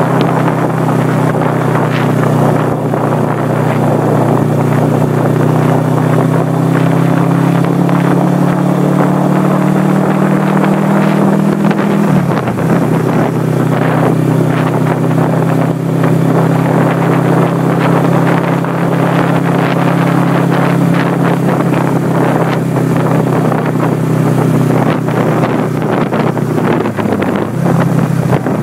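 1979 Suzuki GS425L's air-cooled parallel-twin engine pulling at road speed, its pitch climbing slowly, then dropping sharply about twelve seconds in and holding steady, with a brief dip near the end. Wind rushes over the microphone throughout.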